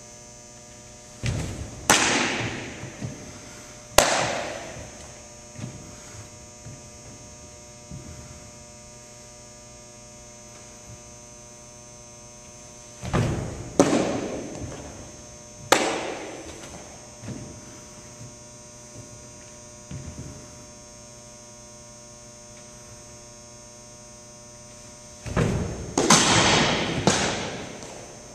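Three baseball pitches in a gymnasium. Each is a dull thud of the stride foot landing on the wooden portable mound, then a loud, sharp pop of the ball into the catcher's mitt that echoes around the gym. A sharper smack follows about two seconds after the first two pitches. A steady electrical hum runs underneath.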